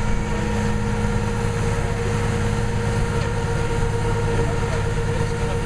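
Heavy diesel engine of a crane running steadily at constant speed, a low rumble with a steady hum that does not rise or fall.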